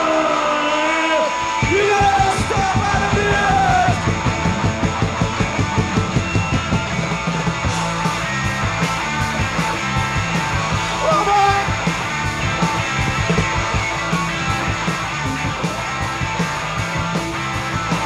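Live punk rock band playing electric guitars, bass and drums. After a few sliding notes, the full band comes in about two seconds in with a fast, driving beat.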